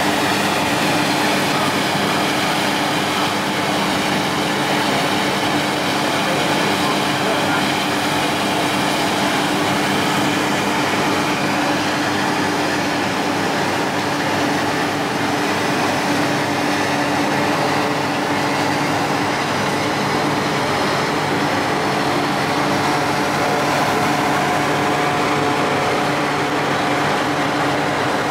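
Steady mechanical drone of ground support equipment running beside a parked aircraft, with a few constant hum tones and no change in level. Voices murmur underneath.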